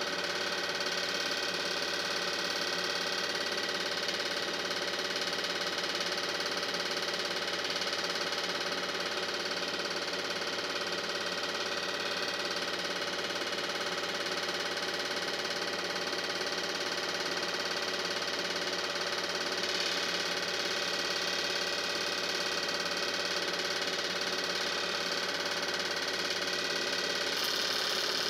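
Steady mechanical hum of a running motor-driven machine, many fixed tones held constant with no change in pitch or level.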